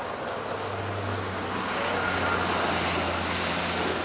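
A motor vehicle passing on the street: a steady low engine hum with a rush of noise that swells about two seconds in and then eases off.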